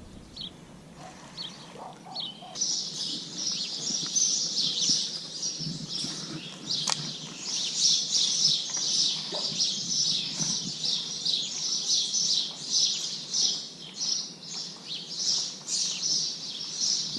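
Birds chirping: a few scattered calls at first, then from about two and a half seconds in a dense, continuous chorus of rapid high chirps, with a single sharp click near the middle.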